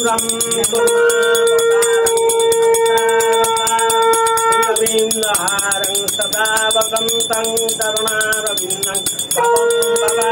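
A small brass hand bell rung fast and without a break during the aarti, with long steady held notes over it that stop about five seconds in and start again near the end.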